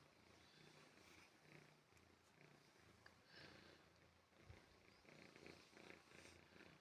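Domestic cat purring faintly, a low rhythmic rumble that shifts slightly in pitch with each breath in and out.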